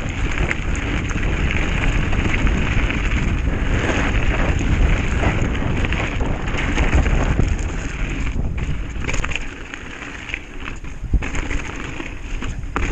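Wind buffeting the camera microphone while a mountain bike rolls fast down a dirt singletrack, tyres crackling over dry leaves and the bike rattling over bumps. It gets quieter from about two-thirds of the way in.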